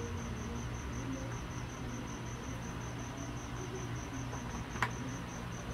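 A cricket chirping steadily in a fast, even pulse over a steady low hum, with one light click near the end.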